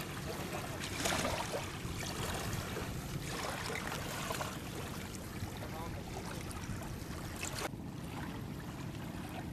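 Boat motor running steadily under a wash of river water noise, with a few brief splashes or knocks and faint voices in the background.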